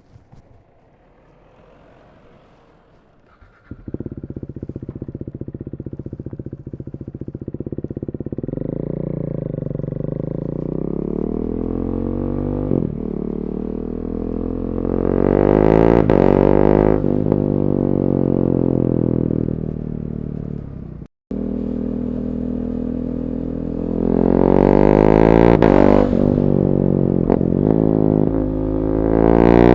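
KTM 390 Duke's single-cylinder engine, breathing through an Akrapovic slip-on exhaust with the catalytic converter removed. It starts about four seconds in, settles to idle and is blipped up and down in rising and falling revs several times. The sound drops out for an instant near the middle.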